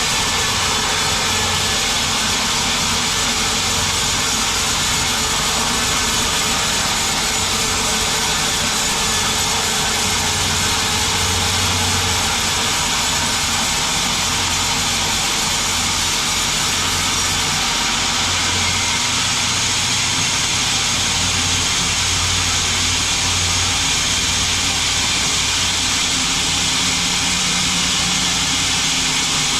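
Sawmill band saw running steadily, with a loud even noise over a low motor hum.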